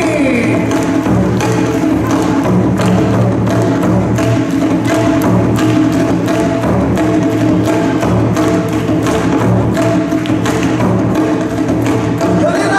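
Instrumental section of yosakoi dance music: sustained pitched notes over a fast, even percussion beat of sharp clicks, with no singing.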